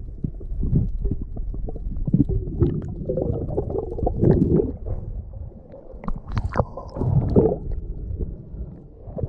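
Water moving around a GoPro camera held underwater, heard muffled through its waterproof housing: an uneven low rumble with irregular clicks and knocks as the swimmer moves near the surface.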